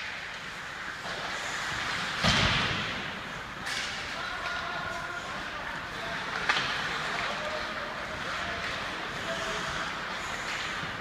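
Ice hockey play in an indoor rink: skates scraping on the ice under a steady rink din, a heavy thud against the boards about two seconds in, and a sharp click of a stick on the puck about six and a half seconds in.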